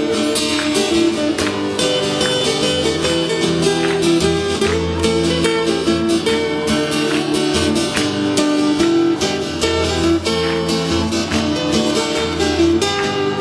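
Two acoustic guitars playing an instrumental break without any drums or keyboard, strummed in a brisk, steady rhythm with sharp percussive attacks.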